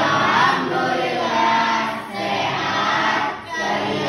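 A class of teenage students singing a song together in chorus, in short phrases with brief breaks about two and three and a half seconds in.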